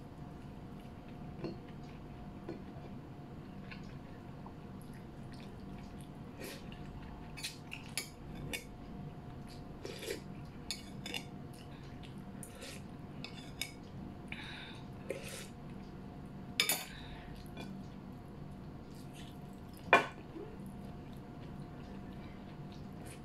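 Eating sounds: a spoon clinking against a plate of bulalo beef soup, with scattered short wet clicks from eating, the loudest clink near the end. A steady low hum runs underneath.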